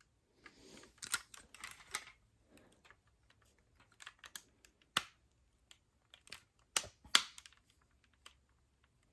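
Plastic parts of a collectible Megazord action figure clicking and tapping as they are handled and fitted back on: irregular small clicks, with the sharpest snaps about five seconds in and around seven seconds in.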